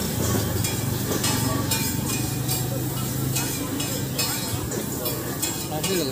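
Street-stall griddle sizzling, with a metal spatula scraping and stirring on the hot plate in repeated strokes about twice a second, over a steady low hum.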